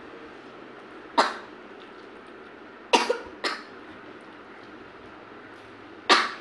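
A person coughing in short, sharp bursts: one cough about a second in, a quick pair of coughs around three seconds, and one more near the end.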